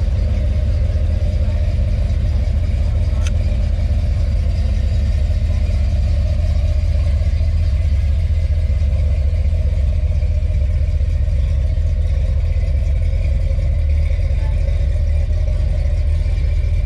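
A car engine idling steadily: a low, even rumble.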